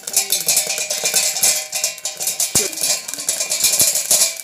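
Sorghum grains popping in a hot covered aluminium kadai: a dense, rapid crackle of pops pattering against the steel lid, with a few sharper knocks about two and a half and nearly four seconds in.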